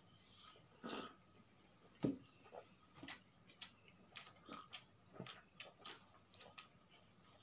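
Quiet chewing of bread: soft, irregular mouth clicks and smacks, with a louder knock about two seconds in.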